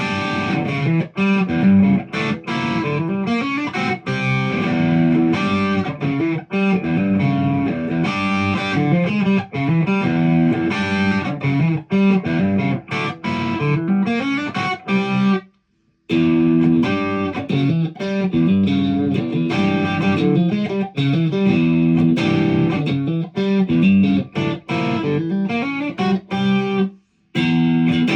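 Ibanez Prestige electric guitar played continuously, a quick run of notes and chords. It breaks off for a moment twice, about halfway through and near the end.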